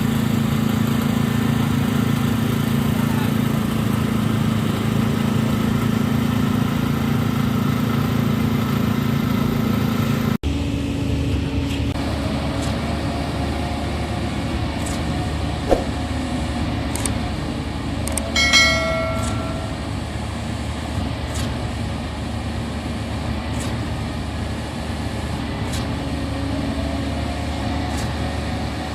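Concrete pump truck diesel engines running steadily. The engine sound changes abruptly at a cut about ten seconds in. A single click comes later, then a brief pitched tone, the loudest moment.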